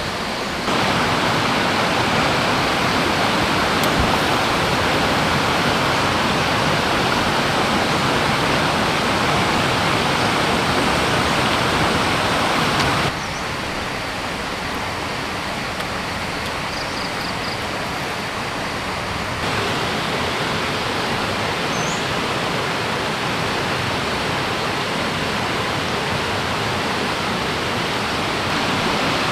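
Stream water rushing steadily. The sound steps up abruptly about a second in, drops suddenly at around thirteen seconds, and rises again near twenty seconds.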